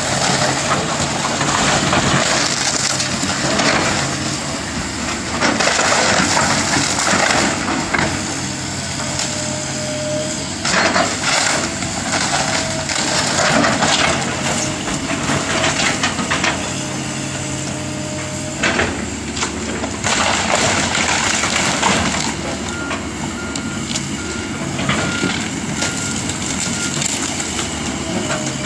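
Komatsu hydraulic excavator demolishing a wood-framed building: the diesel engine runs steadily under load while wood splinters and debris crunches and crashes down in repeated bursts.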